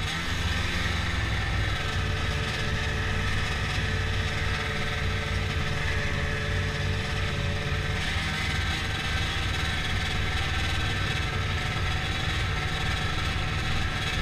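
Ski-Doo snowmobile engine and track running at a steady cruising speed, heard up close from the rider's seat.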